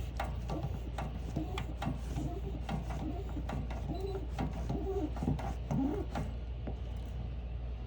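Hands working small shower fittings: irregular sharp clicks, with short squeaks between about three and six seconds in, over a steady low hum.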